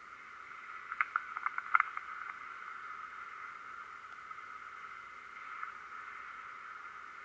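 Steady thin hiss, with a quick run of sharp clicks about a second in.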